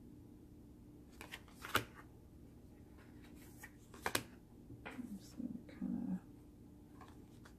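Oracle cards being handled by hand: a few sharp taps and slides as cards are set down and picked up. A few short low sounds come about five to six seconds in.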